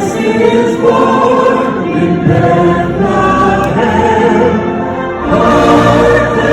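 Music: a large crowd of voices singing a Christmas carol together with a concert band, in held notes.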